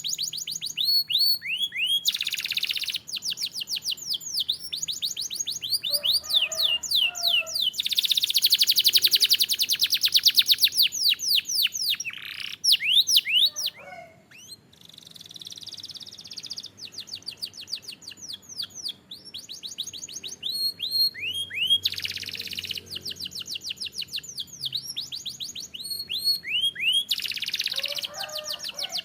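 Domestic canary singing: phrases of fast repeated falling notes, with a long rapid trill near the middle and a brief pause about halfway through.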